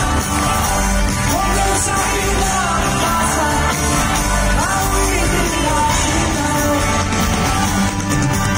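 Live rock band playing with singing, loud and amplified, heard from among a large concert audience.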